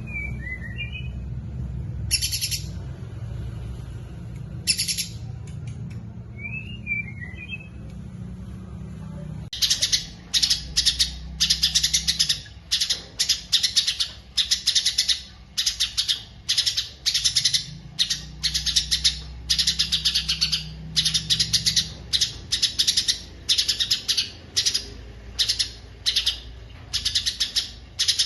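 Songbird chirping in short, sharp, high bursts: a few scattered calls at first, then from about a third of the way in a fast, continuous run of chattering notes, several a second. A low steady hum lies underneath.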